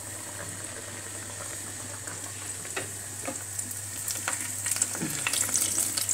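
Pizza fritta dough frying in hot oil in a pan: a steady sizzle with crackles and pops that grow thicker and louder in the second half.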